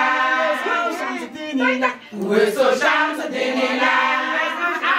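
A group of voices singing a chant together in long held phrases, with a brief break about two seconds in.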